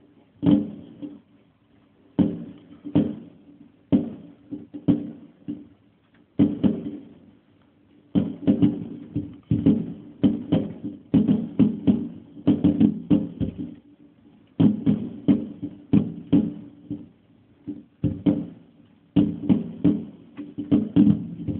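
Fireworks display: an irregular run of sharp bangs, each dying away quickly. They come a second or so apart at first, then thicken into rapid volleys about eight seconds in and again near the end.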